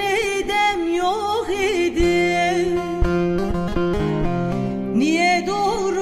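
Turkish folk song performed live: a woman singing a heavily ornamented, wavering melody over two acoustic guitars. Around the middle the vocal line gives way to a short run of plucked guitar notes, and the voice comes back in with a rising slide about five seconds in.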